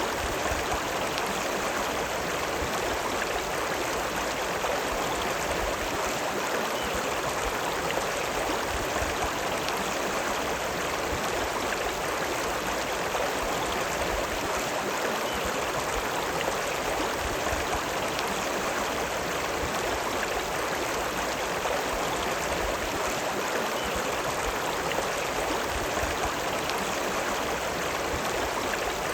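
River water running, a steady, even rush of flowing water that does not change.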